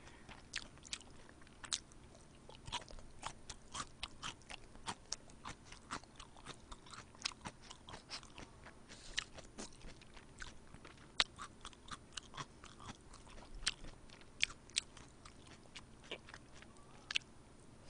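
Close-miked chewing and biting of food: a quick, irregular run of small wet clicks and crunches, with no voice.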